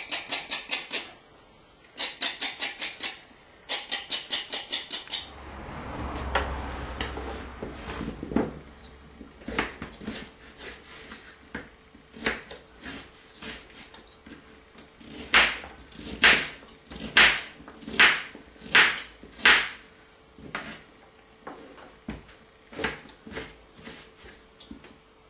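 Carrots being peeled over a sink in quick scraping strokes, in short runs. After a few seconds of handling noise, a knife chops the carrots on a cutting board: separate sharp knocks, loudest and most regular midway, about one every second.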